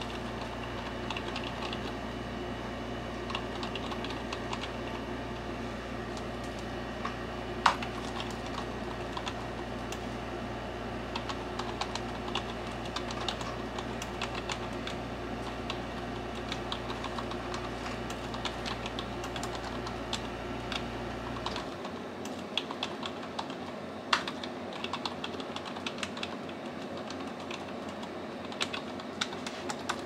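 Continuous typing on a low-profile white wireless computer keyboard: a steady patter of soft key clicks with an occasional louder keystroke. The typing is not so loud. A low steady hum underneath stops about two-thirds of the way through.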